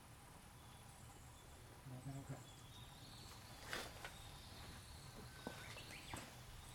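Near silence: faint outdoor ambience with a thin, steady high-pitched insect call that comes in a few seconds in, and a few faint chirps and ticks.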